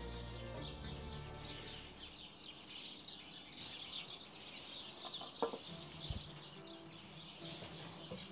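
Small birds chirping busily and without pause, with a single sharp clink of kitchen utensils about five and a half seconds in.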